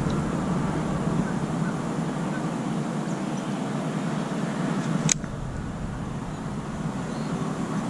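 Steady outdoor background noise, with one sharp click about five seconds in.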